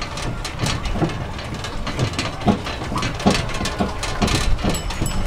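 DOTTO road train driving, with the trailer carriages rattling and knocking irregularly over a steady low running rumble.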